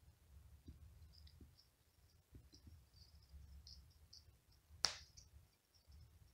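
Faint scattered clicks and light scratching as a cat paws and claws at a cloth toy mouse on a fleece blanket, with one sharper click about five seconds in.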